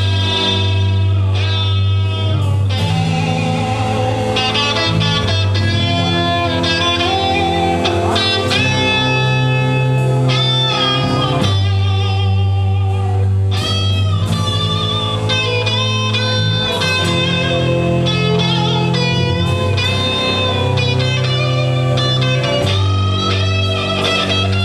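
Live band playing an instrumental passage: electric guitar over bass guitar and drums, at a steady loud level.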